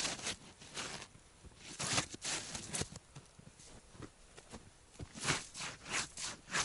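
Rubber boots crunching and shuffling in deep fresh snow, a dozen or so irregular steps and scuffs.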